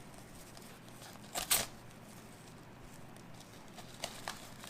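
A paper soup packet being handled and torn: two short rips close together about a second and a half in, then a few faint clicks of handling near the end.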